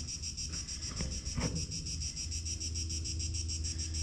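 Crickets chirping: a steady, rapidly pulsing high trill, with a low rumble underneath.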